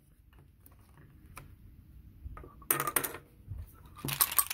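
Board-game dice rolled for an APBA baseball at-bat: a faint click, then two short bursts of clattering as they tumble and land, near the middle and again near the end.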